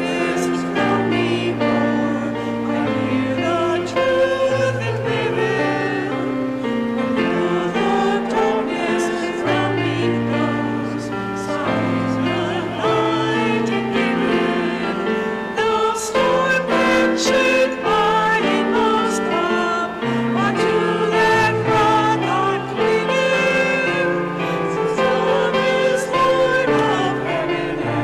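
Church choir singing a hymn with instrumental accompaniment after the dismissal, sustained bass notes moving in steps beneath the voices.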